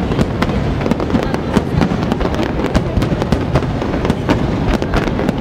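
Fireworks finale: a dense, continuous barrage of shell bursts and crackling reports over a heavy low rumble, with no let-up.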